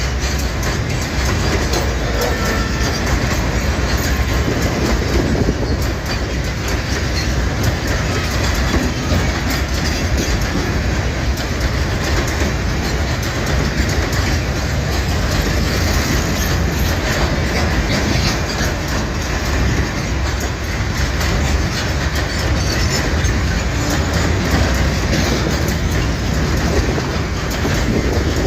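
Loaded freight wagons of a long mixed train (mineral hoppers and container flats) rolling past, a steady loud rumble with the wheels clattering over the rail joints.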